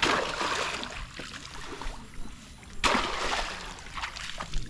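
Water splashing: two loud splashes, one at the start and one about three seconds later, with lighter sloshing between.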